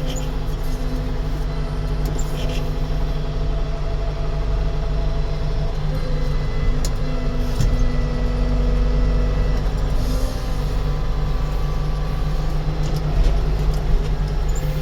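An engine running steadily, a constant low drone with a few light knocks and clicks over it.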